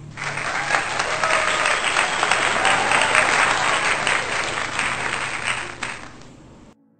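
Crowd applause with a few cheers, a dense patter of many hands clapping, added as a sound effect. It starts suddenly, eases off slightly and cuts off sharply near the end.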